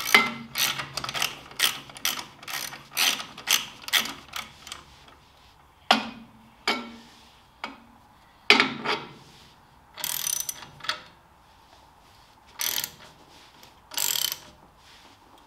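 Hand socket ratchet clicking as a bolt is tightened: quick back-and-forth strokes of about two a second at first, then slower, spaced strokes and a few short ratcheting runs near the end.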